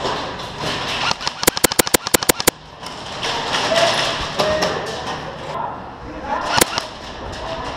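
Airsoft rifle firing a quick string of about nine shots in roughly one second, then a single shot near the end.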